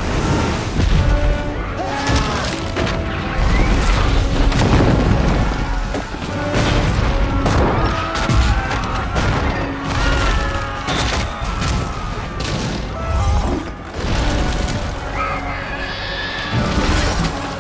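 Film battle soundtrack: repeated cannon booms and explosions over a loud orchestral score, with a cannonball splashing into the water near the start. People cry out in panic as the shelling goes on.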